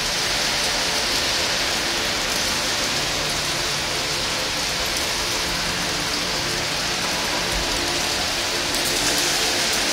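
Electronic soundscape: a dense, steady, rain-like crackling hiss, with faint steady drone tones beneath it.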